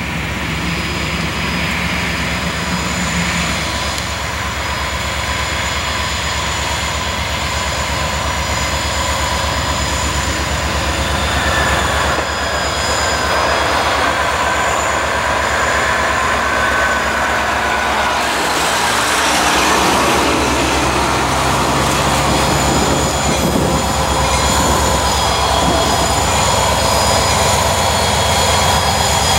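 Norfolk Southern EMD SD40-2 diesel locomotive's two-stroke V16 engine running steadily as it approaches and passes, growing gradually louder. Steel wheels squeal for several seconds through the middle.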